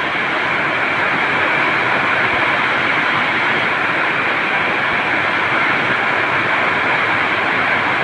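Train running in monsoon rain: a loud, steady rushing noise of wheels, air and rain that holds even throughout, with no horn or clear rhythm.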